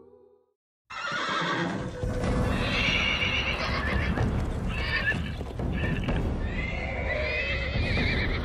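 Herd of Clydesdale draft horses galloping, a dense rumble of many hooves on dry ground, with several whinnies over it. It starts suddenly about a second in, after a moment of silence.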